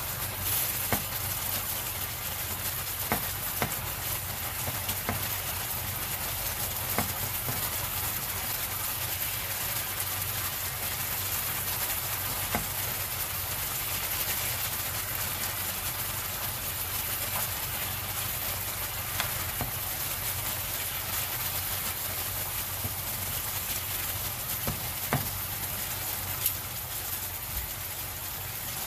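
Pork loin slices sizzling steadily in their sauce in a nonstick frying pan, with scattered sharp clicks of a metal utensil against the pan as the meat is turned.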